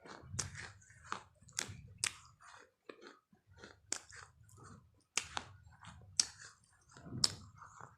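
Close-up chewing with sharp crunches, roughly one a second.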